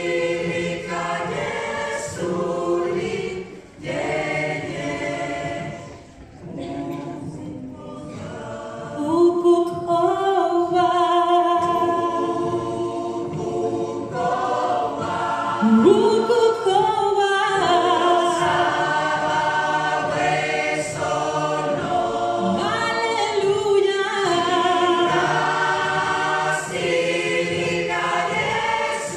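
Mixed gospel choir singing in harmony, unaccompanied, with one voice rising above the group at times and sliding upward about sixteen seconds in. The singing softens briefly a few seconds in.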